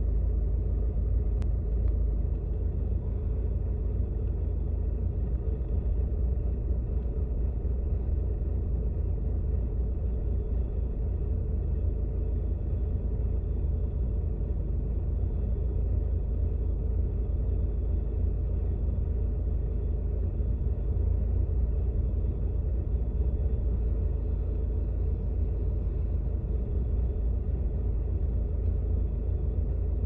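Holden Barina XC / Opel Corsa C 1.4 L Z14XE four-cylinder petrol engine idling warm in Park at about 800 rpm, heard from inside the cabin as a steady low rumble. The owner questions whether this is a rough idle.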